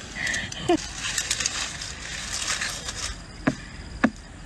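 Rustling and crackling of watermelon vines and leaves being handled and pulled apart by hand. Near the end come two sharp clicks about half a second apart.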